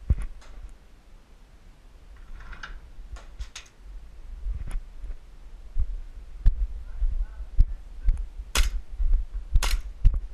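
Airsoft pistols firing single shots at an irregular pace, about a dozen sharp cracks, with the two loudest a little over 8 and 9 seconds in.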